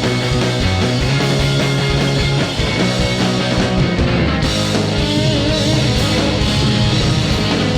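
Live rock band playing an instrumental passage with electric guitar, loud and steady, no singing.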